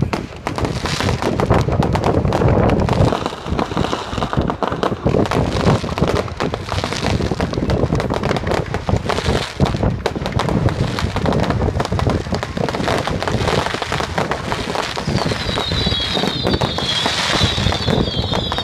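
Fireworks display going off in a rapid, continuous barrage of bangs and crackling from bursting aerial shells, with a cluster of shrill high whistles starting near the end.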